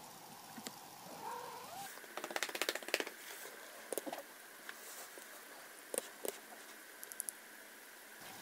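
Domestic tabby cat giving a short meow about a second in, followed by a rapid run of clicks and then a few scattered single ticks.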